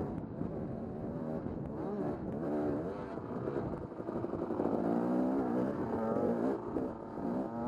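KTM dirt bike engine running under throttle while riding on a dirt trail, its pitch rising and falling continuously as the throttle is worked.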